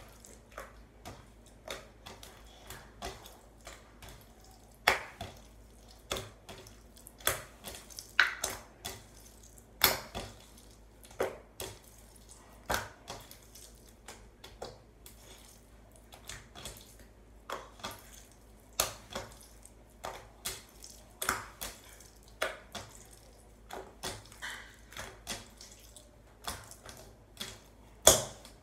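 Slime being worked by hand, giving an irregular run of sharp wet pops and clicks from trapped air, about one to two loud ones a second with softer ones between, the loudest near the end.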